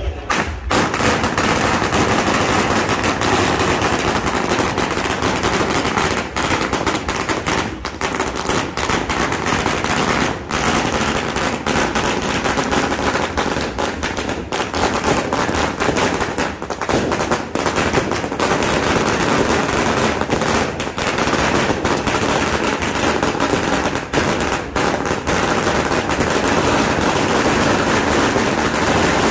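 A long string of small red firecrackers going off on pavement: a fast, dense crackle of pops that starts within the first second and keeps going with hardly a break.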